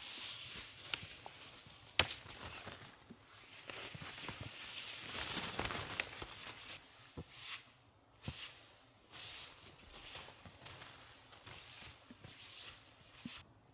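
Snow being swept off the fabric of a tent: hissy swishing scrapes as snow slides and sprays off the nylon fly, almost continuous at first and then in about six separate strokes. A sharp knock about two seconds in.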